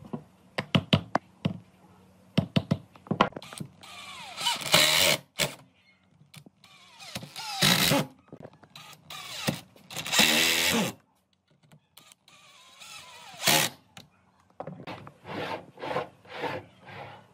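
Cordless drill/driver driving screws into wooden boards in several short runs, the motor winding down at the end of each, between sharp knocks of wood on wood as the boards are set in place.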